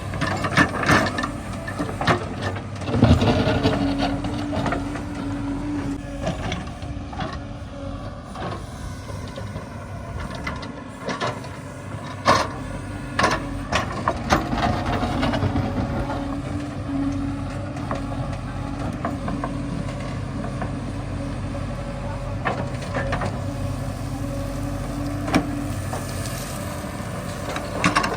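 Heavy diesel engine running steadily, with scattered sharp knocks and clanks over the top.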